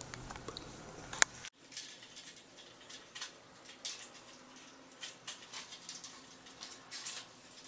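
Faint, irregular light clicks and taps of a bicycle being assembled. One sharper click comes about a second in, over a low hum, and the sound changes abruptly at a cut shortly after.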